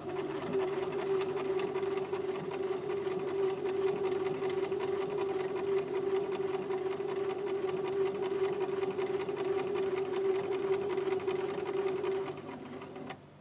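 Domestic sewing machine running steadily at speed, stitching felt, with a fast even needle rhythm; it slows and stops near the end.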